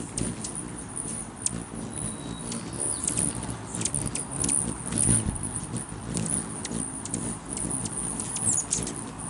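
Rufous hummingbirds hovering close by, wings humming and buzzing, with many quick, high-pitched chips and squeaks as they squabble over a perch.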